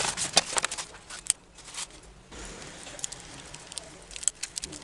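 Crinkling and crackling of a vinyl decal sheet and its backing paper being handled and peeled, with a quick run of sharp crackles in the first second, then softer rustling with a few clicks.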